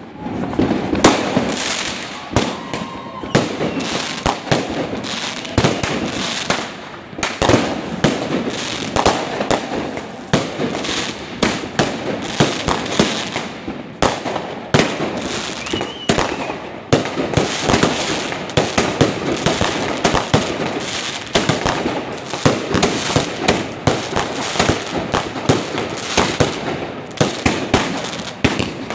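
Ground-launched firework cake firing a rapid, continuous string of shots, with dense crackling and pops throughout.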